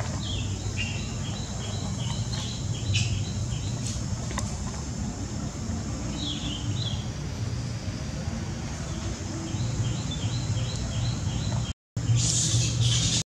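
Outdoor ambience: a steady low hum under a high hiss, with two runs of quick, high chirps repeating several times a second. The ambience breaks off briefly near the end, and louder hissy sounds follow.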